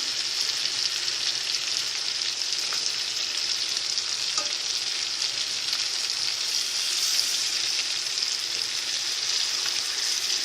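Bone-in chicken pieces shallow-frying in hot oil with a steady sizzle, and a few faint taps as the pieces are turned over in the pan.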